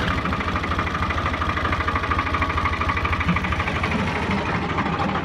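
Tractor diesel engine running steadily with an even, rapid firing beat.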